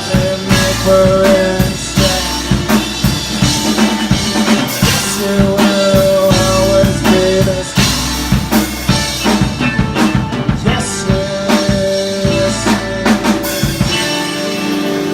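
A rock band playing live through an instrumental passage: a drum kit keeps a steady beat with snare and bass drum under bass and held melody notes. Near the end the drums drop out and only the held notes carry on.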